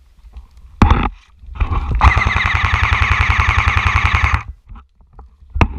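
Airsoft electric gun firing a full-auto burst of about two and a half seconds: rapid, evenly spaced shots over the whir of its gearbox. A single sharp crack comes a little before the burst, and another near the end.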